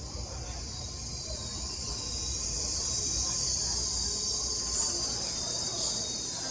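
A train running at a station platform, giving a steady high hiss over a low rumble. The hiss swells over the first few seconds and eases slightly near the end.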